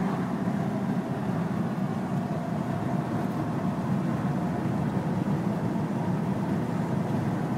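Hummer H2's V8 heard from inside the cabin while cruising, a steady drone of engine and tyre noise.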